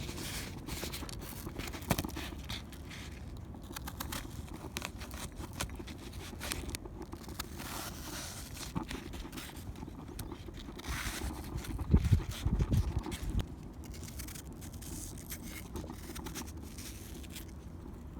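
Wind rumbling on the microphone, with scattered small clicks and rustles, and a stronger gust about twelve seconds in.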